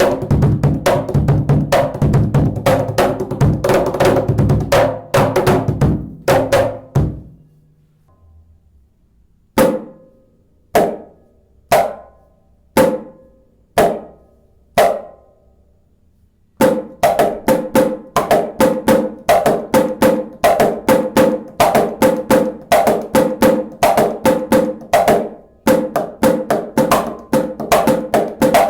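Clapbox Cajembe, a cajon–djembe hybrid hand drum, played by hand: a fast groove of strikes with deep bass tones, then six single strikes about a second apart. Near the end it goes into another fast pattern with less low end.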